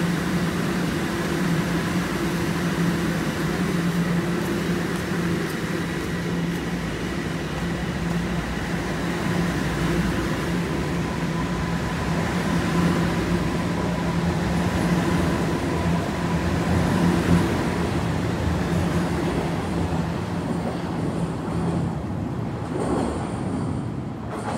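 Toronto Rocket subway train standing at the platform with a steady hum, then pulling out and running past on the rails; the sound falls away near the end as the train clears the station.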